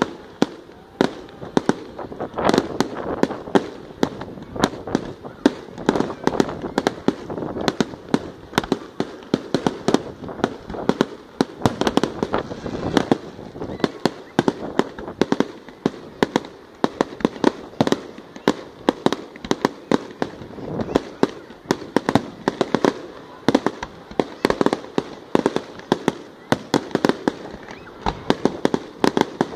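A fireworks display: a dense, unbroken barrage of bangs and crackles from aerial shells bursting, several reports a second.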